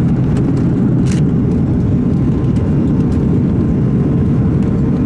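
Steady engine and airflow noise heard inside the cabin of an Airbus A310-300 airliner, with a faint steady tone and a single click about a second in.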